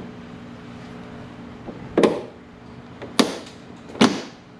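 Three sharp plastic clicks, about a second apart, as a Mercedes W211 third brake light is pressed down and its tabs snap into the trunk lid. A faint steady hum runs underneath.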